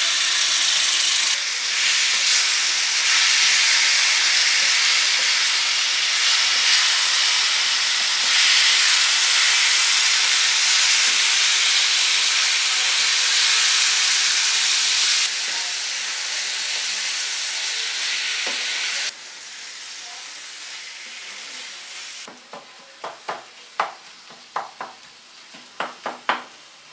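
Thick tamarind paste sizzling loudly in hot oil in a frying pan with dates and spices, dropping suddenly to a much quieter sizzle about two-thirds of the way through. Near the end a wooden spatula stirs the thickening mixture, with a string of short scrapes and knocks against the pan.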